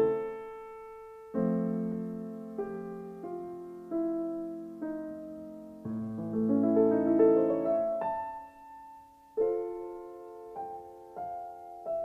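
Slow solo piano music: chords and single notes struck a second or so apart, each left to ring and fade.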